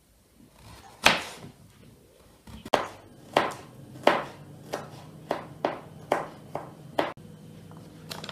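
Kitchen knife chopping peeled potatoes on a wooden cutting board: about a dozen sharp chops at an uneven pace, starting about a second in.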